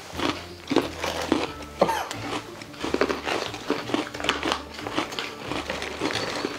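Foil snack pouch crinkling as it is handled, with crunchy cookie dough bites being bitten and chewed.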